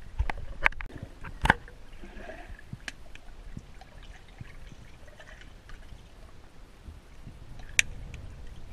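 Muffled underwater sound recorded through a GoPro's sealed underwater housing: a steady low rumble of moving water with a few sharp clicks and knocks, the loudest about a second and a half in and another near the end.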